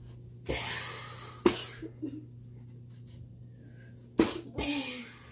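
A plastic toy ladder striking a man twice, two sharp smacks about three seconds apart, with breathy grunts and gasps around each blow.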